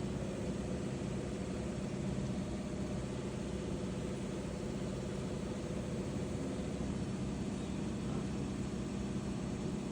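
A vehicle engine running steadily, a low hum with a steady tone held throughout.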